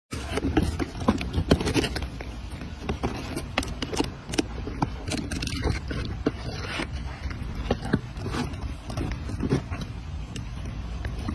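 A baby macaque biting and handling a soft bread bun: irregular close-up clicks and scraping, over a low steady rumble on the microphone.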